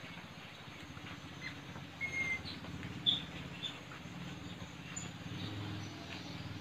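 Wild blue-rumped parrots (tanau) giving a few short, high chirps, the loudest about three seconds in, over a low steady drone. This is a field recording used as a lure call for trapping the birds.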